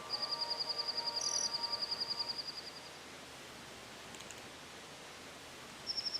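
Nature ambience: a high, fast, even trill lasting about three seconds and a short high chirp about a second in, over soft music that fades out. A quiet hiss follows until the trill starts again near the end.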